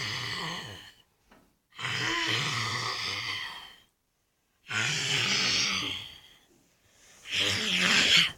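A girl imitating a lion's roar with her voice, in four long bursts of a second or two each with short pauses between.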